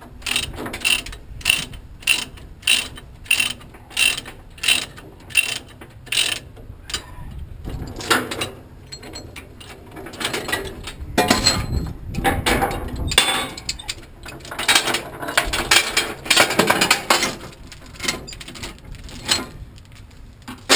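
Ratchet chain binder being cranked loose, its pawl clicking about twice a second. After about seven seconds the loosened load chains and hooks rattle and clank as they are pulled free.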